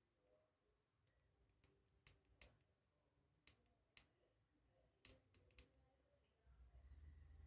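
Faint, scattered clicks of a Syneco luggage combination lock's number wheels being turned by hand, about seven in all. A low rumble of handling noise starts near the end.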